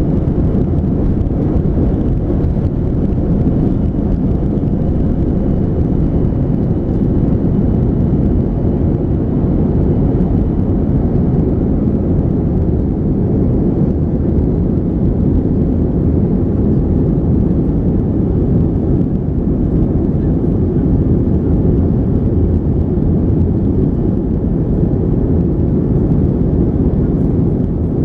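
Inside the cabin of a Boeing 737-300, a steady low rumble of its CFM56-3 jet engines and airflow.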